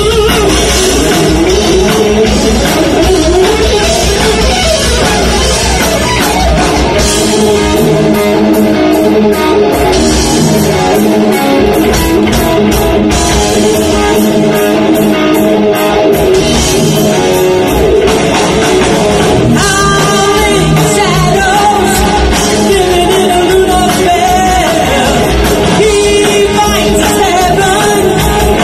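Rock band playing a song with a singer: electric guitar, bass and drums under a sung lead vocal. The bottom end drops back for several seconds in the middle before the full band comes back in.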